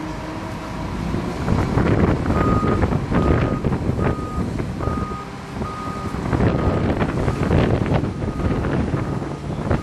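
Heavy plant engine running under load as the crawler crane hoists a small ride-on roller, with a warning alarm beeping at a steady pace from about two seconds in.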